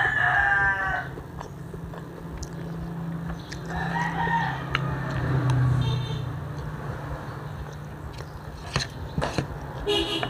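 A rooster crowing in the background, once at the start and again more faintly about four seconds in. Spoons click and scrape on an aluminum foil tray near the end.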